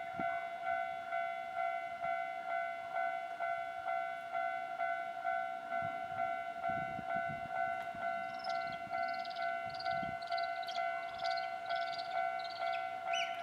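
Japanese railway level crossing alarm ringing: an electronic bell repeating its ding in an even, steady rhythm. A train passes over the crossing about halfway through, with a low rumble and wheel knocks. Quick high chirps sound near the end.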